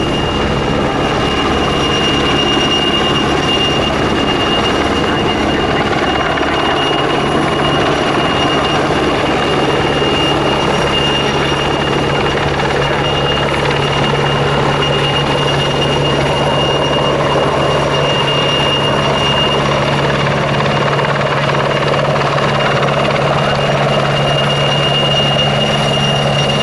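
PZL-Świdnik W-3A Sokół helicopter flying, its twin turboshaft engines and rotor giving a steady loud roar with a high turbine whine. A low rotor hum grows stronger about six seconds in.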